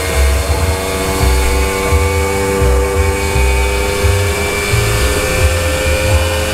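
Simson moped's small two-stroke engine running hard at high revs on a roller dynamometer, a steady high whine whose pitch creeps up slightly, over an uneven low thumping.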